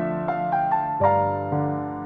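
Background music: a slow, soft piano melody, single notes stepping upward over held chords.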